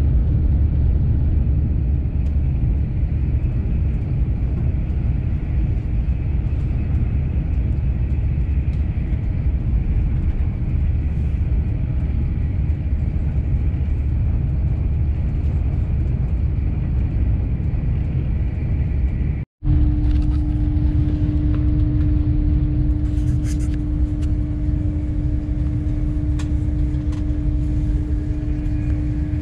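Cabin noise inside a moving Lumo Class 803 electric train: a steady low rumble of the wheels and running gear on the track. After a brief dropout about two-thirds through, a steady hum runs along with the rumble.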